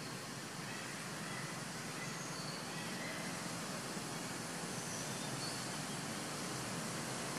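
Steady hiss of outdoor forest ambience, with a few faint, brief high chirps in the background.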